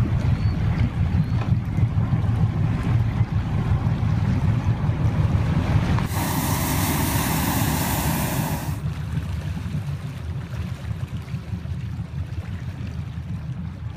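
Hot air balloon's propane burner firing once, a loud roaring hiss that starts about six seconds in, lasts under three seconds and cuts off sharply, over a steady low rumble.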